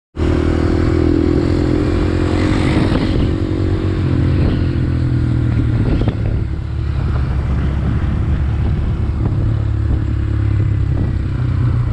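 Honda Grom's 125cc single-cylinder four-stroke engine running on the move, a steady exhaust note whose pitch shifts about four seconds in and again a couple of seconds later.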